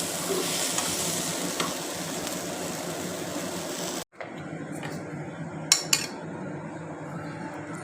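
Food sizzling and frying in a hot pan while being stirred, a steady hiss that cuts off abruptly about four seconds in. After that a quieter background remains, with two sharp clicks in quick succession around six seconds in.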